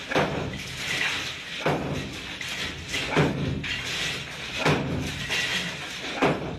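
A series of heavy thuds, about five, each roughly a second and a half apart, over steady background noise.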